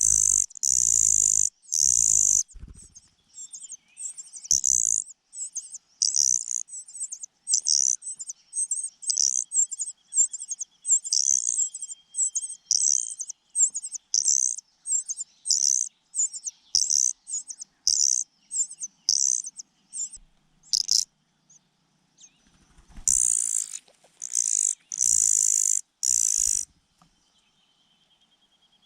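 Young birds, including a cuckoo chick, giving shrill begging calls while scrambling for food, in rapid repeated bursts. The calls are loudest at the start and again about three-quarters of the way in, with a brief lull before that, and a faint thin trill runs for a few seconds in the middle.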